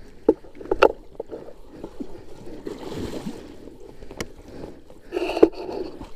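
River water sloshing and splashing around a fallen dirt bike as it is hauled upright, with several sharp knocks.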